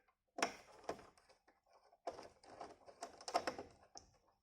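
Irregular small clicks and light scrapes of hard parts being handled as an M.2 SSD and its tiny retaining screw are fitted into a PS5's expansion slot, with some fumbling while the drive is not yet clicking in properly.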